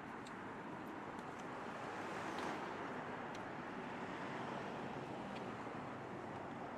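City street traffic ambience: a steady wash of passing car and road noise, swelling briefly about two and a half seconds in as a vehicle goes by, with a few faint ticks.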